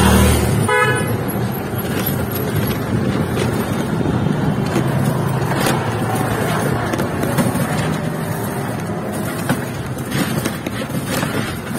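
Road traffic heard from a moving rickshaw: a motor vehicle passes close at the start and a horn honks briefly about a second in. After that a steady street rumble with scattered knocks and rattles.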